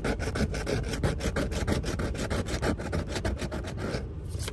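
A coin scratching the coating off a scratch-off lottery ticket in rapid back-and-forth strokes, about ten a second, stopping about four seconds in.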